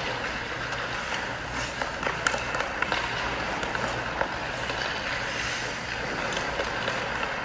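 Ice hockey practice sounds: skates scraping over the ice and scattered sharp clacks of sticks on pucks, over a steady low hum.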